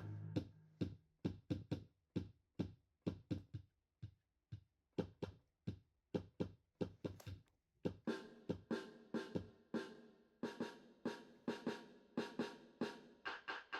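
Background music: a drum beat of sharp hits, sparse at first and filling out into a busier pattern about eight seconds in.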